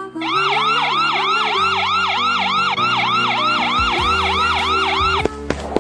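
Siren sound effect, a fast up-and-down wail repeating about three times a second, over background music; it cuts off shortly before the end.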